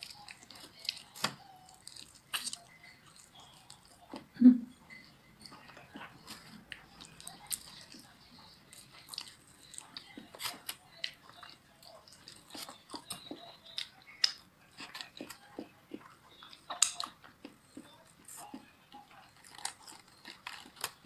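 Close mouth sounds of eating saucy Korean fried chicken: biting and chewing, a run of wet clicks and smacks with some crunching. The loudest moment is a short thump about four and a half seconds in.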